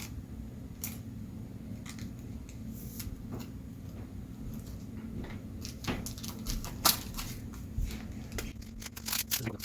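Cardboard trading cards being handled, slid and flicked against one another: scattered papery scrapes and light clicks that come thicker over the last few seconds, over a steady low hum.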